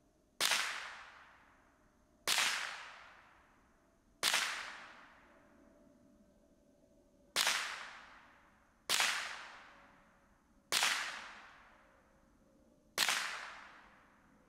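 Seven single shots from a Ruger 10/22 .22 rimfire rifle, fired one at a time with gaps of one to three seconds. Each is a sharp crack with a long fading tail.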